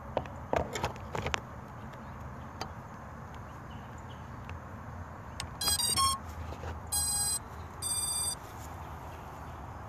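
A few sharp clicks and knocks from handling the phone, then three short electronic beeps about a second apart, the first a warbling chirp and the other two steady tones.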